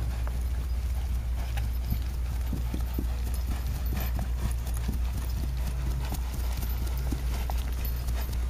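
Hoofbeats of a young Paso Fino mare going under saddle on grass: a quick, even run of soft footfalls in the breed's four-beat lateral gait. A steady low rumble runs underneath.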